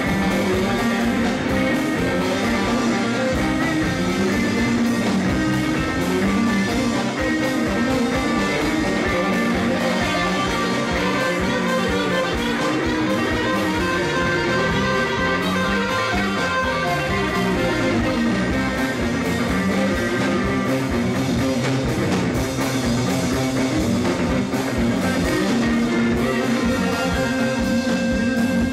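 Live instrumental rock jam: two electric guitars, a Stratocaster-style and an SG-style, playing sustained lines over a drum kit.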